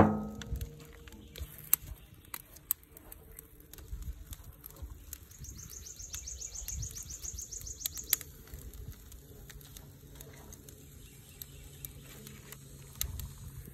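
A bird singing a fast, high trill lasting about two and a half seconds, starting about five seconds in, over faint outdoor background with scattered light clicks and taps. A thump comes right at the start.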